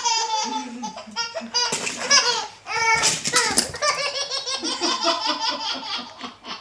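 A baby laughing in repeated bouts of belly laughs, each broken into quick pulses.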